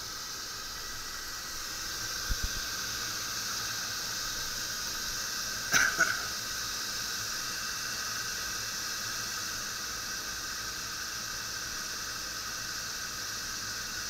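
A Trane rooftop unit starting up in heat: a steady hiss and whine of its running fans, a little louder from about two seconds in, with two short clicks about two and six seconds in, as the ignition sequence runs toward lighting the burners on a newly replaced gas valve.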